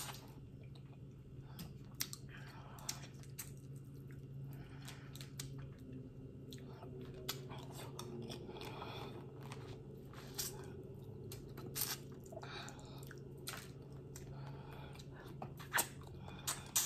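Close-miked chewing and biting while eating a seafood boil of crawfish, dumplings and eggs, with scattered sharp crunches and clicks and wet mouth sounds.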